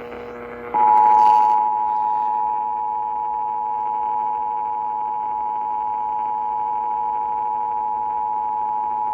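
Emergency Alert System two-tone attention signal (853 Hz and 960 Hz together), heard over an AM radio broadcast: a steady dual tone that starts about a second in, announcing an emergency alert. A fainter steady low hum runs underneath.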